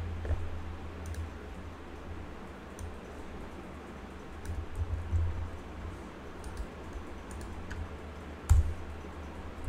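Computer keyboard keystrokes and mouse clicks, a handful of separate clicks a second or more apart, the loudest about eight and a half seconds in, over a low steady hum.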